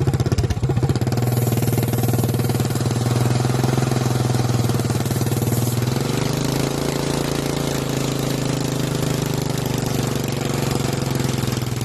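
A small petrol engine runs steadily at constant speed, its pitch settling slightly lower about six seconds in.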